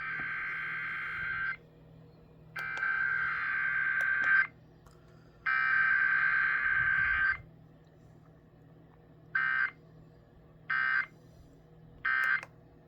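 Emergency Alert System Required Weekly Test: the SAME digital header, three buzzing data bursts of about two seconds each, followed later by three short end-of-message bursts.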